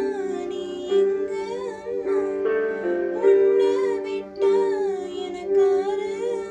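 Slow music: held chords under a gliding, wavering melody line, the backing track of a sentimental Tamil film song.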